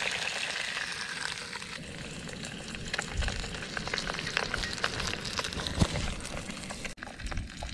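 A whole flounder sizzling in a hot pan on a gas camping stove: a steady frying hiss peppered with pops and crackles, with the scrape and knock of a wooden spatula pressing the fish down.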